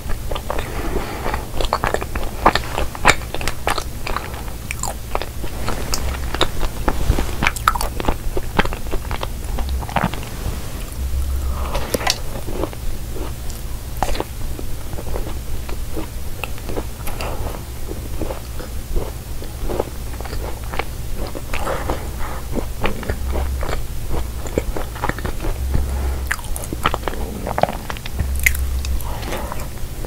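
Close-miked chewing and biting of cookie pie, with frequent crisp crunching clicks that come thickest in the first ten seconds or so, over a faint steady low hum.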